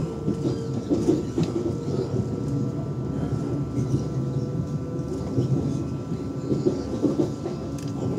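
Lastochka (Siemens Desiro RUS) electric train heard from inside the carriage while running at speed. A continuous rumble of the wheels on the track carries a steady high whine and a few scattered knocks.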